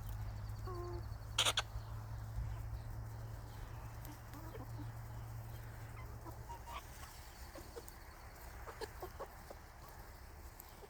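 Hens clucking in short scattered calls inside a chicken coop, with one brief sharp sound about a second and a half in that is the loudest thing heard. A low hum runs underneath and fades out about two-thirds of the way through.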